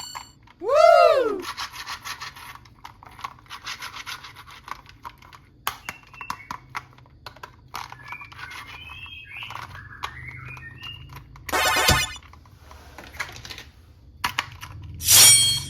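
Toys being handled: quick clicking and rubbing of plastic, with a springy tone that rises and falls about a second in, short chirpy whistles past the middle, and two short loud noisy bursts near the end.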